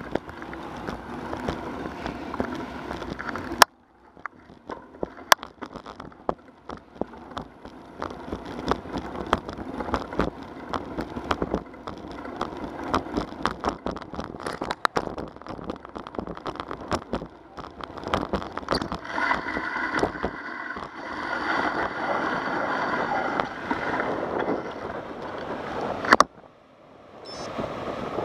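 Bicycle ride heard through an action camera: a steady rumble with many sharp clicks and knocks over the concrete path, and wind on the microphone. Rushing water from the reservoir outlet fills in the sound for the last few seconds. The audio drops out briefly twice.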